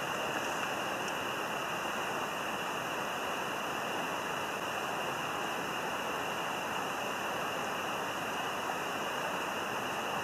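Steady, even rush of flowing water, unchanging throughout.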